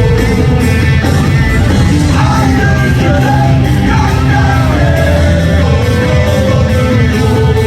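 Rock music with a sung vocal line over a steady backing beat.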